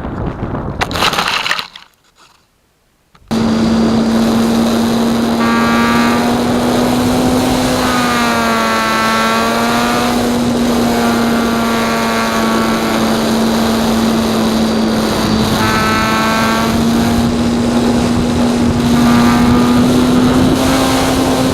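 Radio-controlled model Cessna 150's motor and propeller, a steady drone with a whine that bends up and down in pitch every few seconds as the plane flies its rolls past. It is preceded by wind on the microphone and about a second of near silence.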